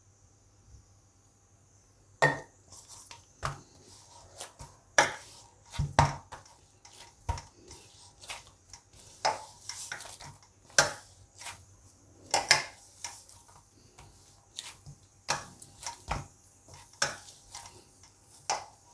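Hands kneading a ball of oiled maida dough in a stainless steel bowl: irregular soft slaps and presses of the dough, with knocks of the steel bowl, starting about two seconds in and coming roughly once or twice a second.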